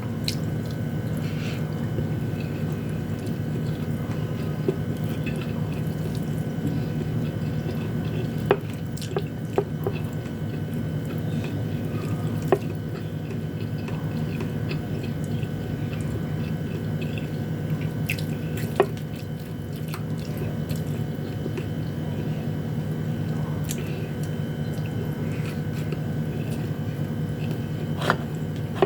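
Eating sounds: chewing with a few sharp clicks scattered through, over a steady low hum.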